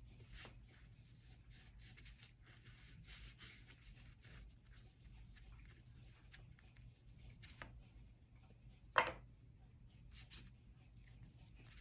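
Oil pastel rubbing across paper in short, repeated strokes, faint, with one sharp tap about nine seconds in.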